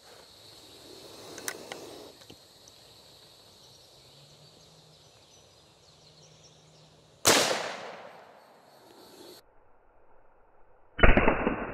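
A single shot from a Winchester 9422M lever-action rifle firing a .22 Magnum round: a sharp crack about seven seconds in that fades over about a second. Near the end comes a second, duller blast with no high end, the slowed-down sound of the shot's slow-motion replay.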